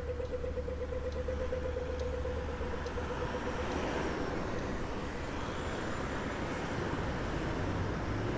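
Australian audio-tactile pedestrian crossing signal sounding its walk cue: a rapid ticking that signals pedestrians to cross, lasting about three and a half seconds. After it stops, street traffic noise continues.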